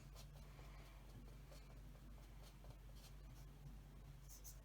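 Near silence: faint scratching and light clicks of a small toy packet's wrapper being peeled, over a steady low hum.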